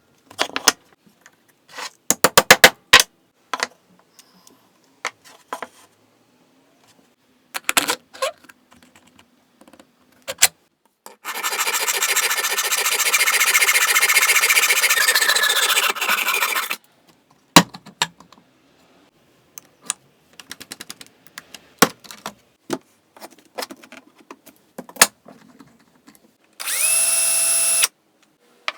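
Workshop build sounds: scattered sharp knocks and clicks of wood and hardware being handled and fitted, and a rough power-tool cut into wood lasting about five seconds in the middle. Near the end an electric drill spins up and runs steadily for about a second.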